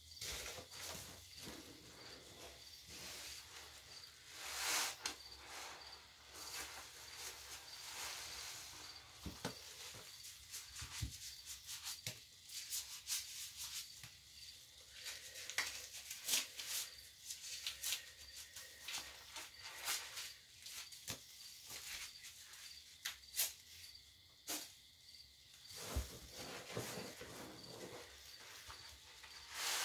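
Dense soap foam crackling and fizzing with many fine pops as sponges are squeezed and worked in it, with a few louder wet squelches from the squeezing.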